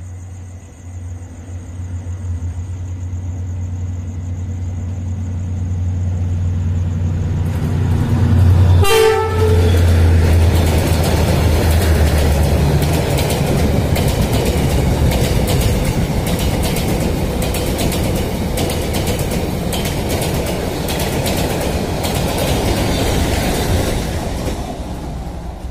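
Diesel-hauled passenger train passing: the locomotive's engine drone grows as it approaches, a short horn blast sounds about nine seconds in as it goes by, then the carriages' wheels clatter over the rail joints for some fifteen seconds before the sound fades as the train moves away.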